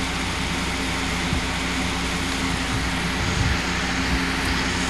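Steady hiss with a low electrical hum, and a couple of faint low bumps.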